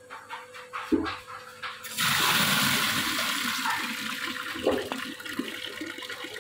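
Water pouring from a brass tap into a plastic bucket, starting suddenly about two seconds in after a single knock, and easing slightly as the stream thins. The outlet's booster pump is still switched off, so no pump is heard with the flow.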